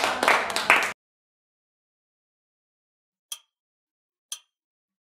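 A group of people clapping, cutting off suddenly about a second in. After a silence, two short sharp ticks a second apart near the end, the start of a steady once-a-second ticking.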